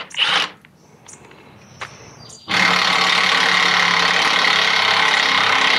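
Cordless impact wrench with a 12 mm socket hammering steadily, loosening a rear sway bar bushing clamp bolt. It starts about halfway in and is loud.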